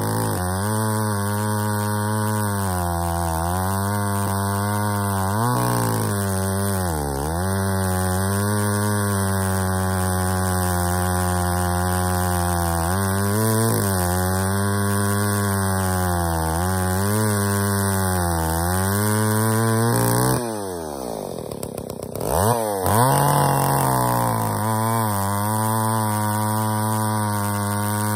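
John Deere 80EV two-stroke chainsaw running at full throttle while its chain cuts through a log, the engine pitch sagging under load and picking back up again and again. About twenty seconds in the throttle is let off and the engine falls away toward idle, then revs back up to cut again.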